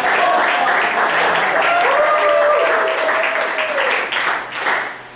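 Audience applauding with voices cheering over the clapping; the applause dies away near the end.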